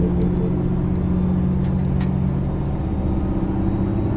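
Low rumble and engine drone of a KiHa 261 series diesel railcar under way, heard inside the passenger cabin. The steady low engine tone fades away about two and a half seconds in, leaving the running rumble.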